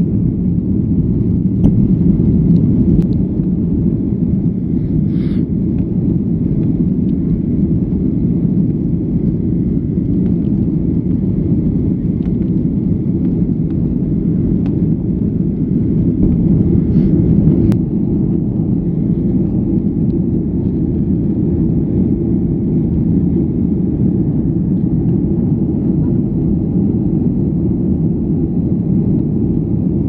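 Steady cabin roar inside a Boeing 737-800 airliner in flight: the hum of its CFM56-7B turbofan engines and airflow past the fuselage, heard as an even low rumble.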